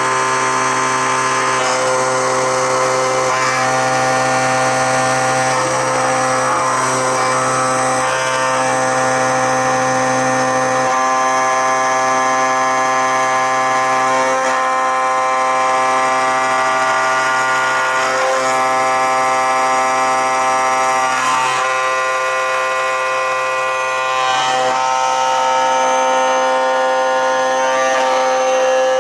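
Machine tool running while machining a steel part: a steady whine of several held tones. The lowest tone drops out about eleven seconds in, and the mix of tones shifts again a little past twenty-one seconds.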